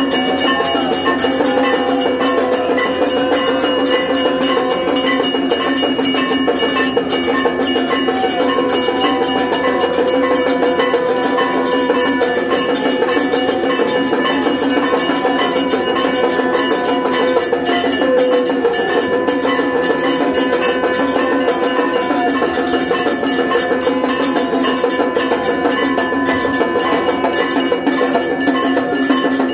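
Temple bells rung rapidly and without pause for the aarti, with clanging strikes over steady ringing tones.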